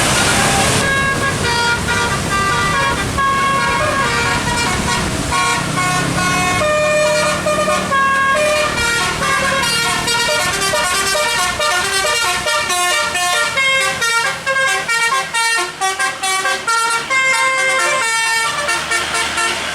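Bus 'telolet' musical air horn playing a tune, several notes sounding together. The notes are held at first, then come in quick short blasts from a little past halfway.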